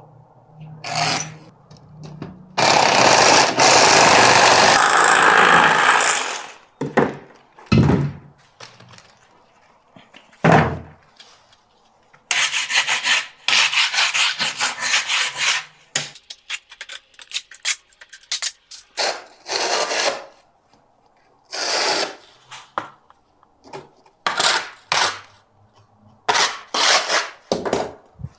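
An aerated concrete block being cut to length with a hand saw. The sawing comes in stretches of rapid strokes: the longest and loudest is a few seconds in, another follows about halfway through, and shorter scraping bursts come near the end.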